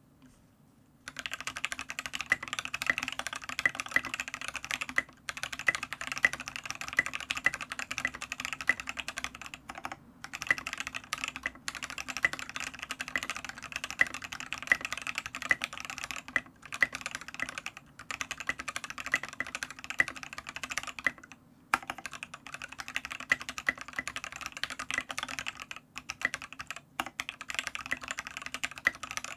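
Fast, continuous typing on a Matrix Noah 65% keyboard with lubed C³Equalz Tangerine linear switches, an aluminium plate and KAT Milkshake keycaps, set on the bare desk without a deskpad. The typing starts about a second in and pauses briefly a few times.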